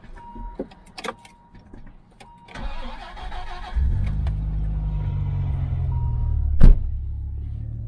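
1997 Dodge Viper GTS's 8.0-litre V10 cold-starting: a few small clicks, then the starter cranks for about a second before the engine catches, about four seconds in, and runs at a high idle. A sharp knock comes near the end, after which the idle settles a little quieter.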